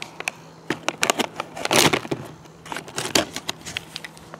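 Foil-laminated MRE oatmeal cookie pouch being torn open and crinkled by hand: a run of sharp, irregular crackles, with one longer tearing rip a little before the middle.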